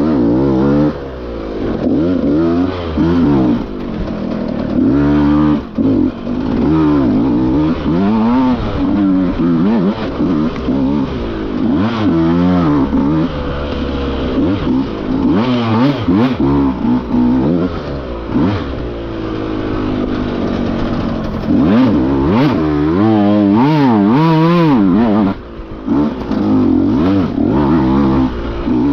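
Dirt bike engine revving up and down continually under hard, constantly changing throttle on a hard enduro trail, with a brief drop about 25 seconds in where the throttle is closed.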